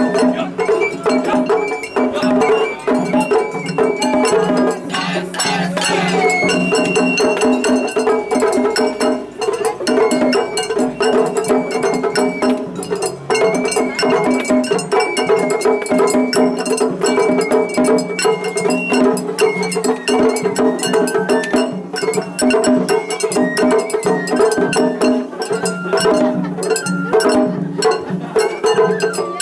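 Japanese festival hayashi music: a bamboo flute plays a stepping melody over steady, fast drumming, with a small metal gong clanging in the rhythm.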